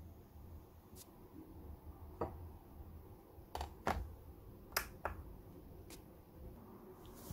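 Several sharp clicks and knocks, about seven in all and scattered unevenly, as a ceramic bowl and ingredient containers are handled on a countertop and the bowl is set on a digital kitchen scale, over a low rumble.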